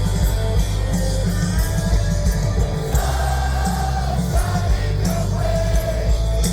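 Loud live rock music: a band playing with a singer, the bass heavy and dense.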